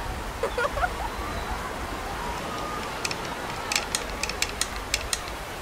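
Beach sound effects: a steady wash of surf, with a short voice-like call about half a second in. From about three to five seconds in comes a quick run of sharp clicks.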